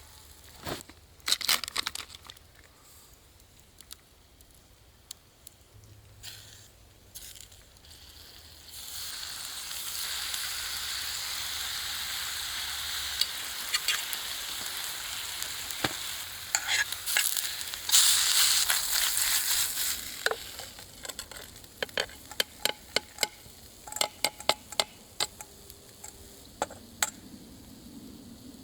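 Food sizzling in a frying pan. A steady sizzle starts about nine seconds in, swells loudest around twenty seconds and then dies down. Sharp taps and scrapes of a utensil in the pan come before and after it.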